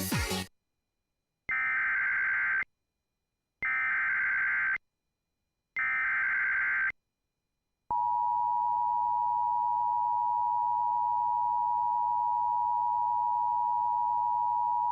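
Music cut off abruptly, then the Emergency Alert System header: three short bursts of SAME data tones, each about a second long. About eight seconds in, the steady two-tone EAS attention signal sounds, announcing a severe thunderstorm warning.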